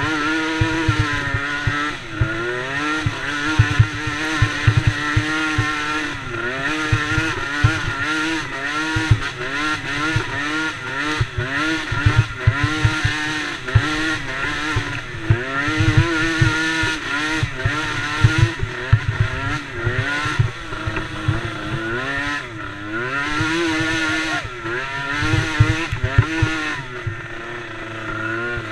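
DRR DRX90 youth ATV engines racing, revving up and easing off again and again, their pitch rising and falling every second or two, with irregular low thumps throughout.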